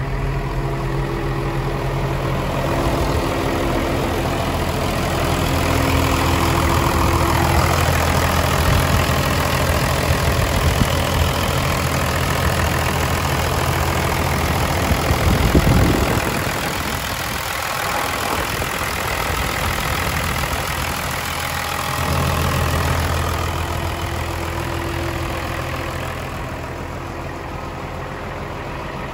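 The diesel engine of a Kalmar DCD 200-12 LB forklift idling steadily, with a single thump about halfway through.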